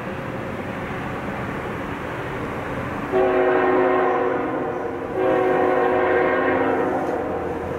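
Locomotive multi-chime air horn sounding two long blasts, the first about three seconds in and the second about five seconds in, over the steady rumble of the approaching train.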